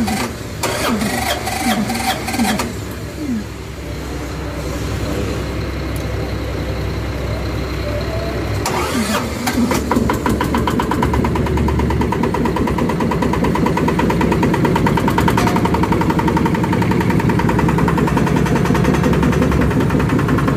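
Yanmar TF85MR-di single-cylinder horizontal diesel being cranked on its battery-powered electric starter, then catching and running steadily. It grows louder and settles into an even run about ten seconds in.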